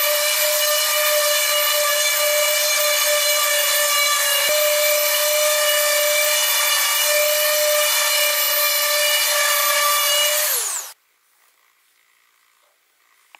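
Electric random orbital sander running on a mulberry-wood slab, a steady high whine with a light rubbing hiss from the pad on the wood. About eleven seconds in it is switched off, the whine falling in pitch as it winds down and stops.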